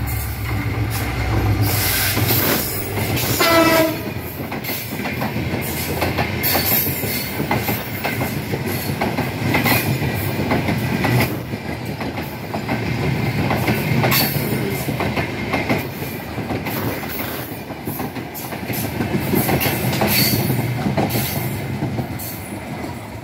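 Diesel locomotive rumbling as it comes alongside, sounding a short horn blast about four seconds in, then a long rake of passenger coaches rattling past with wheels clacking over the rail joints.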